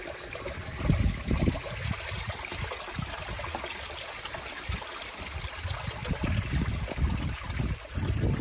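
Small mountain stream trickling and running over rocks, a steady rushing hiss, with irregular low thumps on the microphone throughout.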